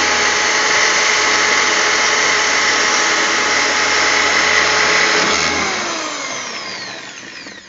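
Electric drill running at full speed while drilling a hole through the car's firewall. About five seconds in it is released and spins down, its pitch falling.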